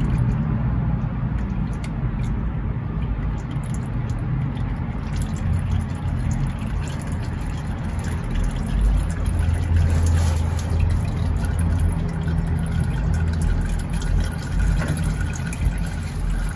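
Engine oil trickling and dripping from a loosened spin-on oil filter into a drain pan, over a steady low rumble.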